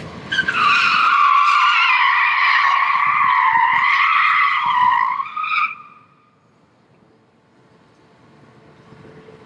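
Tyres squealing loudly for about five seconds, the pitch sagging slightly, then cutting off.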